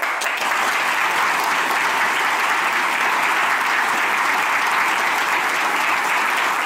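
Audience applauding: a dense, steady clapping that holds an even level throughout.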